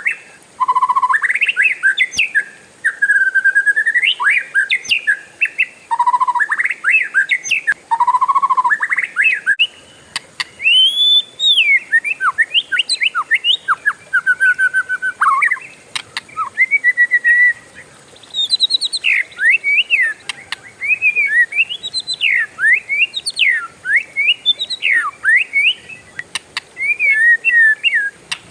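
Oriental magpie-robin singing a long, varied song of whistles and rapid slurred notes, with brief pauses between phrases.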